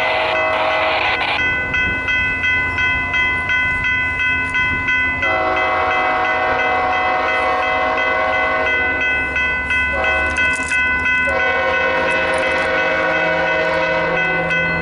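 BNSF freight locomotive's Nathan K5HL air horn sounding the crossing signal: a long blast ending about a second in, then a long blast, a short one and another long one that is still sounding at the end. Over it the crossing's electronic warning bells ring at about two strikes a second.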